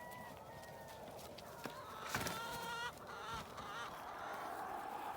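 Backyard chickens clucking faintly, with one clearer drawn-out call about two seconds in and a shorter one a little later.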